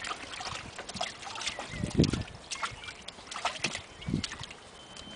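A flat-coated retriever puppy splashing and sloshing about in shallow water in a plastic paddling pool: irregular small splashes, with a heavier slosh about two seconds in.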